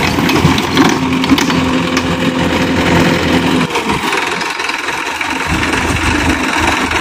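Sonalika tractor's diesel engine running while the tractor is stuck in deep mud. Its steady note breaks off a little past halfway and turns rougher and uneven.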